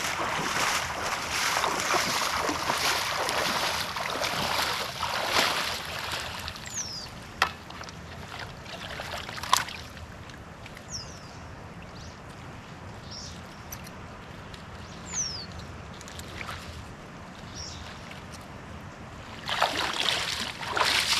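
Shallow lake water splashing and sloshing around a person wading at the shore, loudest over the first few seconds and again near the end as he steps out of the water. In the quieter middle come two sharp clicks about two seconds apart.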